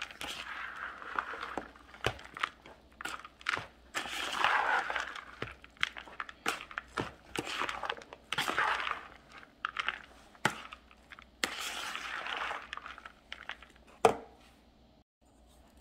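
A metal spoon stirring a dry cornbread dressing mix of crumbled cornbread, croutons and sautéed vegetables in a bowl: repeated crumbly, scraping swishes broken by sharp clicks of the spoon against the bowl, with one louder knock near the end.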